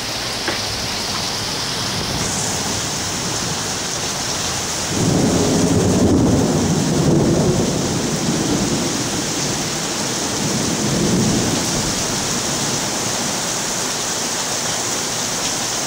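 Rain falling steadily in a thunderstorm. About five seconds in, a roll of thunder rumbles low for several seconds, then fades back under the rain.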